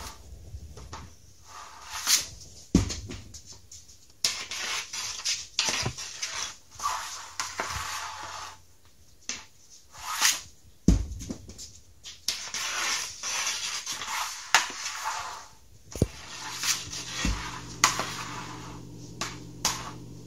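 Hockey stick blade scraping across a shooting pad as pucks are wrist-shot off it, with sharp clacks of stick on puck and puck landing, repeated several times.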